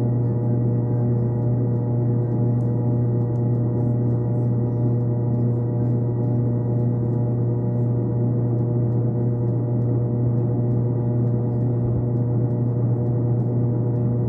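A steady, unchanging drone of several held tones, deepest and strongest at the bottom, with no beat or rhythm.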